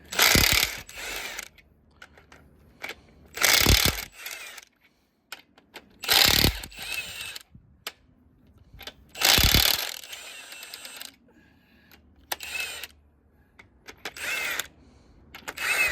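Short runs of a power tool loosening engine main bearing cap bolts: four loud bursts of under a second each, two to three seconds apart, then two softer ones near the end.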